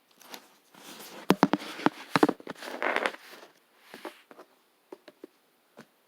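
Tarot cards being shuffled and handled: a couple of seconds of rustling with several sharp snaps, followed by scattered light taps as cards are set down.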